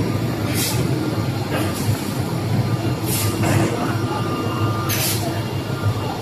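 SH-S200 CNC optimizing cross-cut saw running, with a steady low machine hum and several short hissing bursts at uneven intervals.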